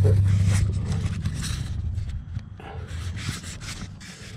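Rubbing and scraping handling noise as a handheld camera is moved about under a vehicle. Over the first two seconds a low steady hum fades away.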